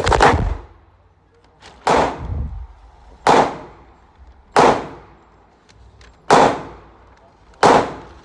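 Gunshots fired one at a time, about six in a row roughly one and a half seconds apart, each a sharp crack with a short ringing tail.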